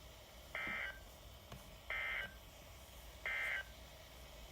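Emergency Alert System end-of-message data bursts over NOAA Weather Radio: three short, identical buzzy digital tones about a second and a third apart. They signal that the flood warning message has ended.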